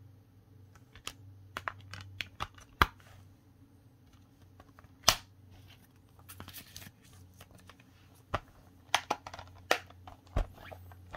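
Plastic Blu-ray case being handled: a string of irregular sharp clicks and snaps, with a short papery rustle from the printed insert about six and a half seconds in.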